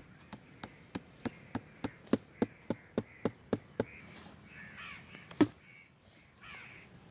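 A quick, even run of about a dozen sharp knocks, about three a second, then crows cawing, with one more loud knock partway through the calls.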